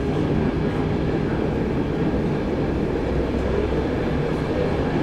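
Stockholm Metro train running through a tunnel, heard from inside the passenger car: a steady rumble of wheels on rails and traction motors.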